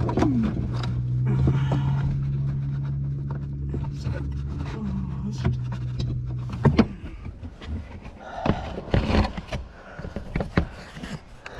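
A steady low hum that stops abruptly about two-thirds of the way through, followed by scattered clicks and rustles of hands handling plastic parts under a truck dashboard.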